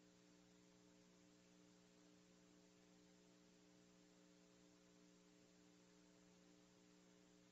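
Near silence: a faint, steady electrical mains hum with a low hiss, unchanging throughout.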